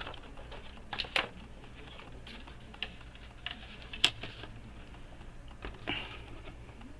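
Handling noise: a few scattered light clicks and taps from a circuit board and tools being moved about on a plastic lid, the sharpest about four seconds in.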